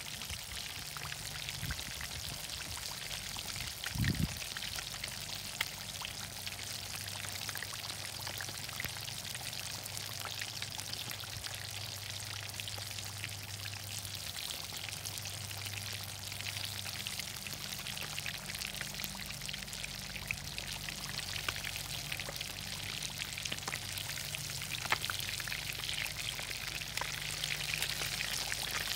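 Breaded fish deep-frying in hot oil in a cast-iron skillet: steady sizzling with many small crackles and pops. A single knock about four seconds in.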